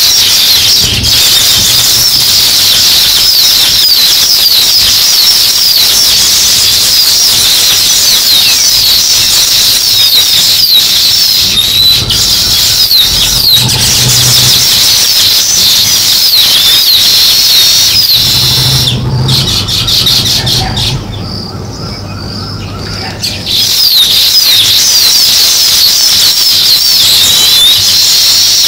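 A flock of house sparrows chirping in dense, overlapping, rapid chirps. The chorus breaks off for a few seconds about two-thirds of the way through, then resumes.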